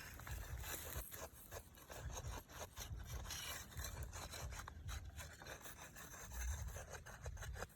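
Irregular scraping and rubbing strokes, many short ones in quick, uneven succession, over low dull thumps.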